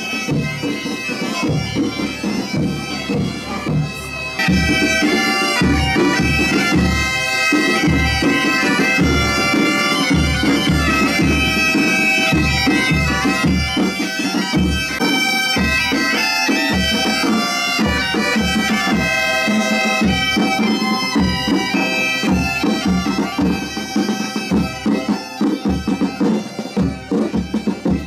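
Galician bagpipes (gaitas) playing a tune over their steady drone, with snare drums and a bass drum (bombo) keeping a regular beat; the bass drum comes in strongly about four seconds in.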